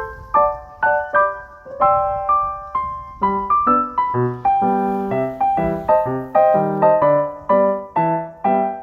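Background piano music: a melody of quick, separate notes, with lower bass notes joining about three seconds in.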